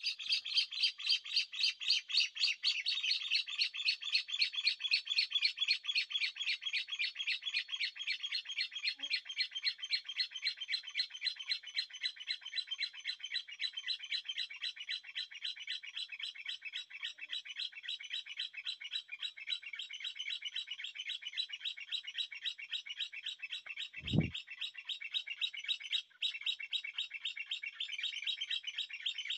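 Bird chirping continuously in a fast, steady run of short high notes, several a second. A single dull thump about four-fifths of the way through.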